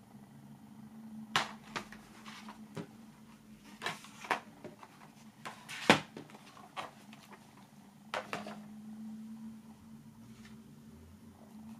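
Cardboard and plastic DVD box-set packaging being handled: scattered clicks, taps and sliding rubs as the disc trays are folded shut and the box and booklet are moved, with one sharp knock about six seconds in. A low steady hum runs underneath.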